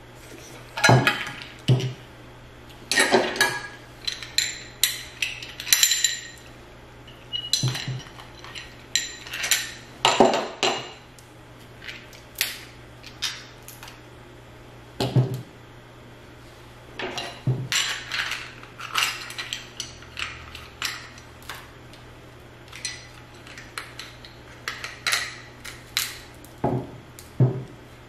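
Irregular sharp cracks and clicks, in clusters with short pauses, from king crab leg shells being cracked open and handled.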